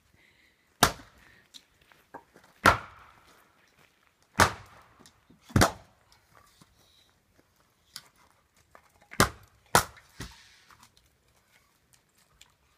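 An axe splitting firewood on a chopping block: six sharp cracks of the blade hitting the wood, about one to two seconds apart, with a longer pause in the middle.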